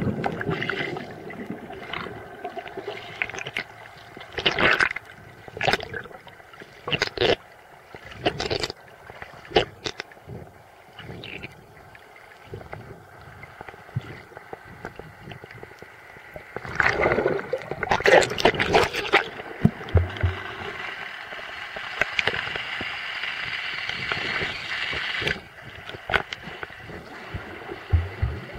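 Muffled underwater sound picked up by a submerged camera: gurgling water and bubbles, with scattered sharp knocks and clicks and a louder cluster of bubbly bursts about two-thirds of the way through.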